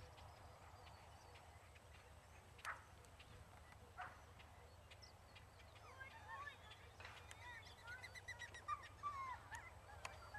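Near silence in an open field, with a steady low hum underneath. Two short faint calls come about 3 and 4 seconds in, then faint bird chirping from a little past halfway.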